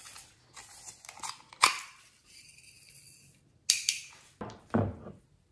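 Hard plastic owl-shaped toy being picked up and handled: sharp plastic clicks and knocks, the loudest about a second and a half in, then a pair of clicks and a dull thump near the end.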